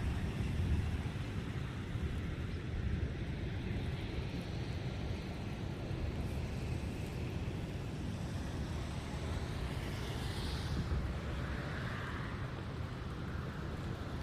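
Rainstorm sound: a steady low rumble of wind and rain, with a faint higher sound swelling about ten seconds in.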